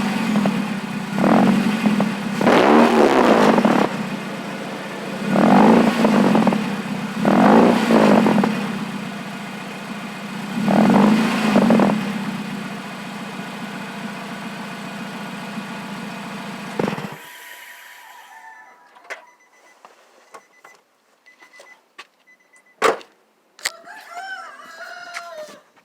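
Nissan Versa hatchback's four-cylinder engine running with no exhaust fitted, idling and revved in about six short blips, then switched off about 17 seconds in. After it stops there are a few faint clicks and one sharp knock.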